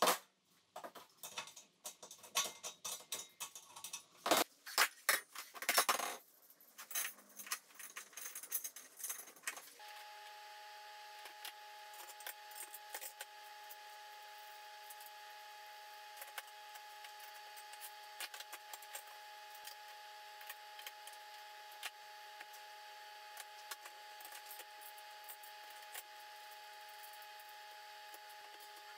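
Irregular metallic clinks, clanks and rattles of sheet-steel stand legs and loose hardware being handled and fitted together. About ten seconds in these give way to a steady hum with a few faint ticks.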